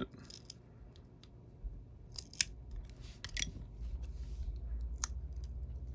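A small flathead screwdriver scraping and clicking against a glued-down battery and the plastic chassis of a Contour ROAM3 action camera as it is wiggled to pry the battery loose: a run of irregular sharp clicks and short scrapes.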